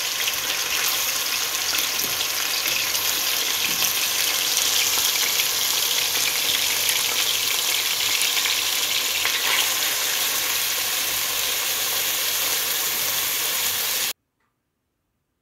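Chunks of fresh horse meat frying in hot oil in a kazan, a steady dense sizzling and crackling; it cuts off suddenly near the end.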